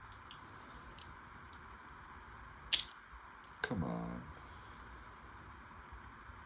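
LEGO Technic parts being handled and fitted together: light plastic clicks, and one sharp snap about three seconds in. Just after the snap comes a short sound of about half a second that drops in pitch.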